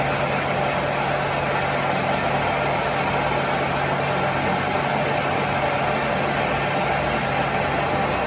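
A motor or engine running steadily with a constant low hum.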